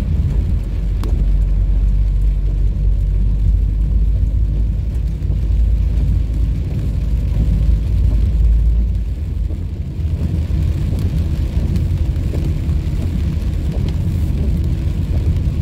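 Car driving on a rain-wet road, heard inside the cabin: a steady low rumble of engine and tyres with a light hiss above it. The deepest rumble eases about nine seconds in.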